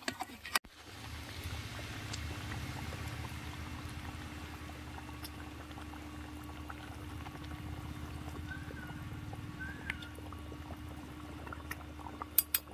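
A big pot of fish-head curry bubbling steadily at the boil, a low, even rumble with small pops. A couple of sharp clicks near the end.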